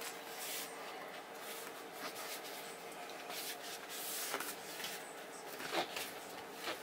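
Hands rubbing and sliding a peel-and-stick vinyl floor tile across a painted wooden floor and pressing it down, faint, with a few soft knocks in the second half.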